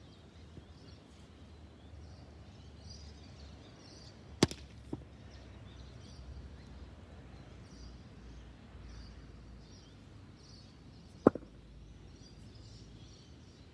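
A cricket bat cracks into the ball about four and a half seconds in, followed half a second later by a lighter click. A second sharp knock comes near the end, over a low steady outdoor wind noise.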